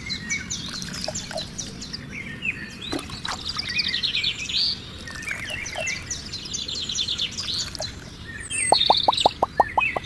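Songbirds chirping and twittering, many short calls and trills overlapping. Near the end, a rapid run of short, evenly spaced chirps begins, about six a second, louder than the rest.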